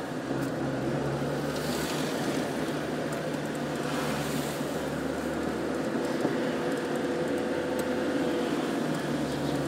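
Car driving along a street, heard from inside the cabin: a steady hum of engine and road noise.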